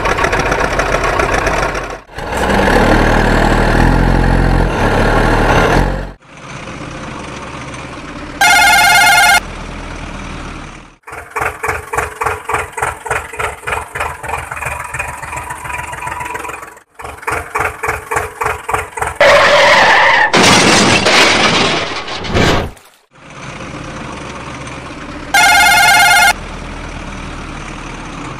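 Dubbed-in vehicle sound effects for toy trucks: engine running and chugging in a steady pulse of about three to four beats a second, a short high horn-like tone sounding twice for about a second each, and a loud noisy stretch like a skid about two-thirds of the way through.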